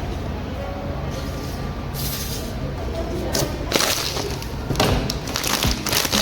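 Blind-box packaging being handled: crinkling and rustling in irregular bursts that start about two seconds in and grow louder near the end, over quiet background music.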